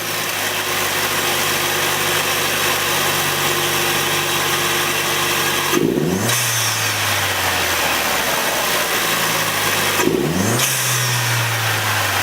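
Chevrolet Cruze 1.4-litre turbocharged four-cylinder engine running with an aftermarket MPFab intake fitted. It idles steadily and is revved twice, about six seconds in and again about ten seconds in, each rev rising quickly and falling back to idle.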